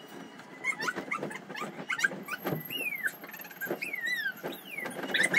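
Beagle yipping and whining in several high, falling cries, sped up with the fast-forwarded footage, among quick rustles and knocks.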